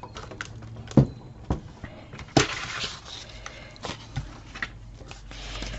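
Cardstock pieces being handled and moved: a few sharp taps and a short paper rustle about two and a half seconds in.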